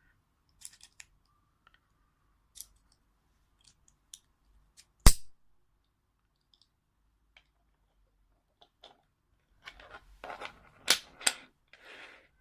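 Plastic side-release buckle being handled and clicked: scattered light clicks, one loud sharp click about five seconds in, and a run of clicks and rattles near the end.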